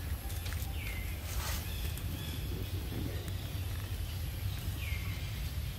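Two short high calls, each falling in pitch and then levelling off, about four seconds apart, over a steady low rumble, with a brief rustle about a second and a half in.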